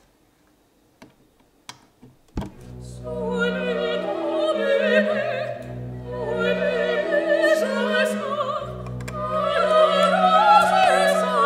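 A few faint clicks, then from about two and a half seconds in, operatic singing with an orchestra starts abruptly and carries on loudly, the voice wavering with vibrato over held low notes.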